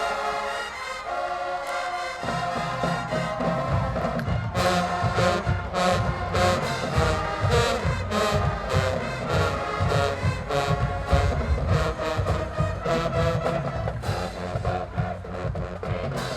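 Marching band brass section playing a tune. Low horns come in about two seconds in, and drums and cymbals join with steady hits about four and a half seconds in.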